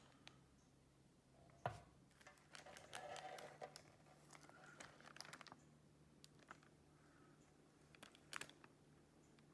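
Faint handling noises: a sharp knock about two seconds in, rustling and crinkling, and scattered clicks, over a faint steady low hum.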